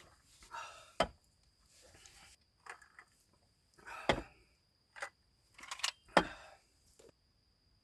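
Objects being handled in a small enclosed space: rustling and clattering with three sharp knocks, about a second in, about four seconds in and about six seconds in.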